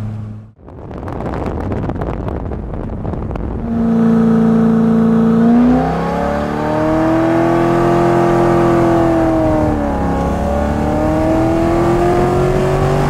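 Car engine heard from inside the cabin, first a noisy wind-and-road rumble, then from about four seconds in the engine note comes up loud and climbs under acceleration, dips around ten seconds in and climbs again.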